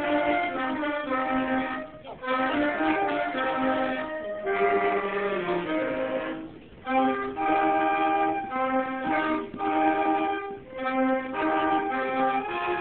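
A small violin ensemble playing a tune together in held, bowed notes, phrased in stretches of a few seconds with short breaks between them.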